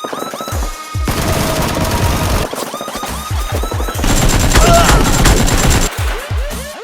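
Rapid automatic gunfire sound effects over background music, densest and loudest from about four to six seconds in.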